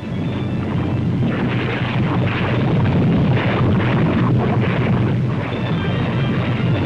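Paricutin volcano erupting: a loud, continuous low rumble that swells a little over the first couple of seconds.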